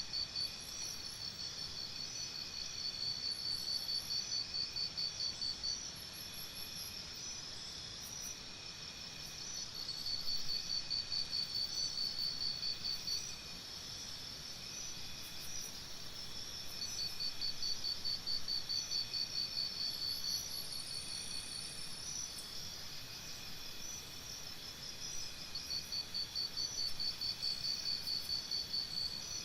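Forest insect chorus: a rapid, high pulsed trill comes in bouts of about three to four seconds, several times, over a steady high-pitched insect hum.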